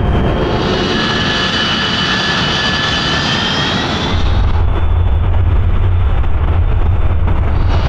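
Jet aircraft engine noise: a steady rush with a high whine in the first half. About four seconds in the whine drops away and a deeper rumble takes over.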